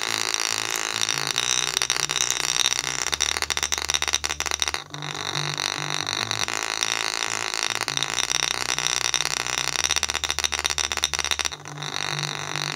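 JBL portable Bluetooth speaker pushed hard on a bass-heavy song, its upward-facing bass driver pumping deep sub-bass notes held for a second or two at a time. A golf ball resting on the driver rattles rapidly against it.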